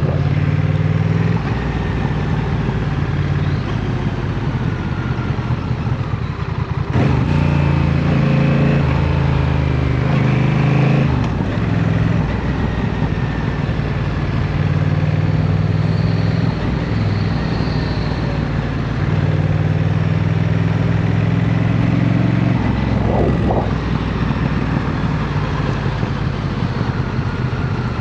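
Honda CMX1100 Rebel's parallel-twin engine running while riding, its pitch stepping up and down several times with throttle and gear changes.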